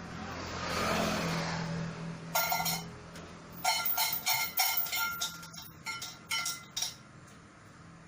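Light clinks and clicks of small hard objects, a short pair about two and a half seconds in, then a quick run of them for about three seconds, after a brief hissing swell at the start.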